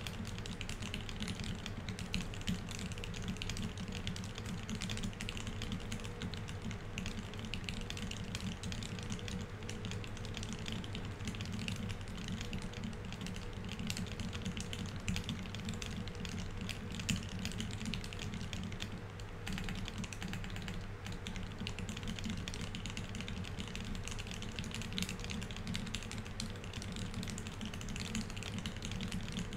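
Fast, continuous typing on a Keycult No. 1/65 mechanical keyboard with Tealios V2 67g linear switches lubed with 205g0, C3 stabilizers and GMK Oblivion keycaps. The keystrokes run together in a dense, even stream at typing-test speed.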